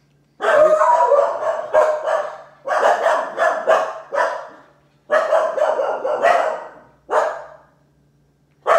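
A dog barking repeatedly in five loud bouts of several barks each, with short pauses between.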